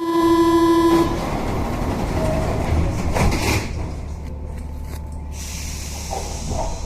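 Rubber-tyred MP05 Paris Métro train heard from on board. A steady tone sounds for about the first second, then the train runs with a steady low hum.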